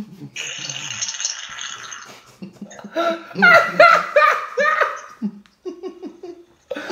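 A short hissing noise lasting about a second and a half, then people laughing in a run of quick repeated bursts from about three seconds in, trailing off into a few short low chuckles.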